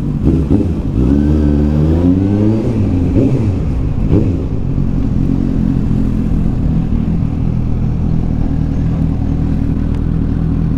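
Motorcycle engine pulling away, its pitch rising over the first couple of seconds, then running steadily at low revs as the bike rolls slowly.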